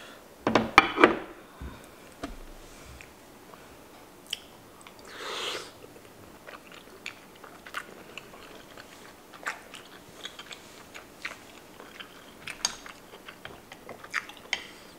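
A person eating a sautéed mushroom dressed in olive oil and balsamic vinaigrette, close to the microphone. A loud bite comes about half a second in, then wet chewing with small scattered mouth clicks and smacks.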